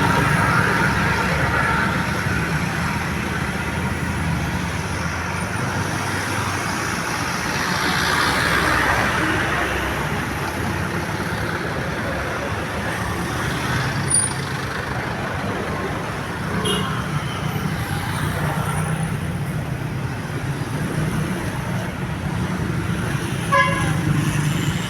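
Road traffic with a large vehicle's engine running steadily, and a short horn toot near the end.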